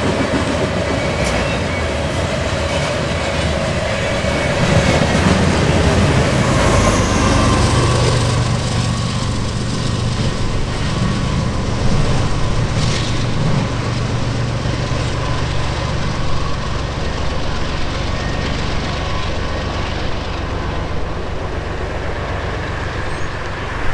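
Loaded coil steel freight cars rolling past on the rails: a steady rumble of steel wheels on track.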